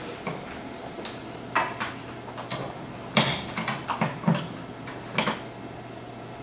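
Irregular handling clicks and light knocks, about seven in all, as dust caps are taken off the brass quick-connect fittings of a mini-split's refrigerant line set and outdoor unit, and the fittings are handled against the unit's casing.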